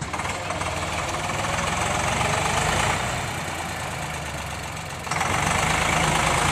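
Eicher 548 tractor's three-cylinder diesel engine running as it tows a tipping trailer, with a clattery diesel knock. The engine swells, eases off, then speeds up sharply about five seconds in.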